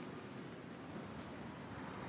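Quiet steady ambient background: a low rumble with a faint hiss and no distinct events.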